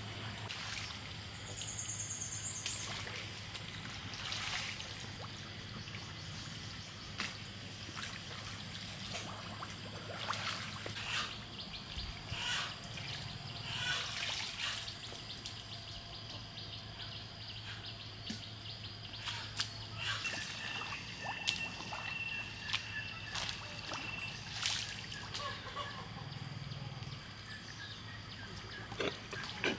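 Water trickling and splashing in irregular small bursts, over a steady low hum, with a few bird calls.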